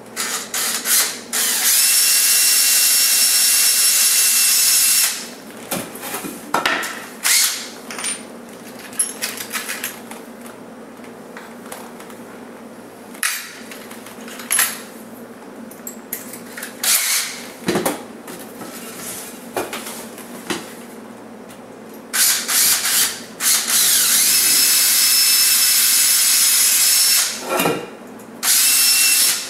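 Electric drill drilling a hole through wood, with a steady motor whine. It runs in two long stretches of about three seconds each, with short trigger blips near the start and near the end and handling clicks and knocks in between.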